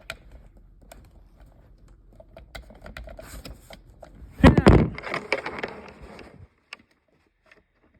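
Plastic clicks and scrapes from handling a 1998 Nighthawk carbon monoxide alarm while trying to push down its test button, which will not go down, so the alarm does not sound. A loud knock about four and a half seconds in, then the sound cuts off about two-thirds of the way through.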